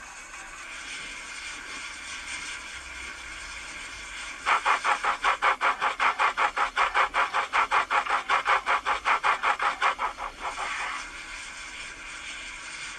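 Hornby M7 model tank locomotive with a synchronised cold-water smoke unit, running steadily on a rolling road. About four and a half seconds in, quick, even chuffs start at about five a second, in time with puffs of smoke from the chimney, and stop about ten seconds in.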